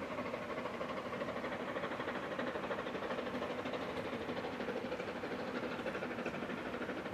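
Narrow-gauge C2-class steam locomotive working along the line, its exhaust beating in a quick, even rhythm.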